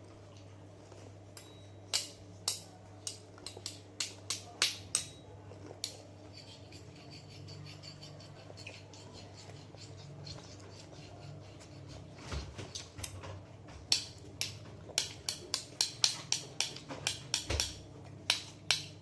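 Metal spoon clinking and scraping in a bowl of Chiki snacks: a string of sharp clinks about two seconds in, then a faster run of clinks near the end.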